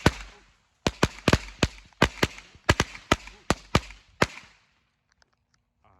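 Consumer firework going off: a quick, irregular run of about fourteen sharp cracks that stops about four seconds in.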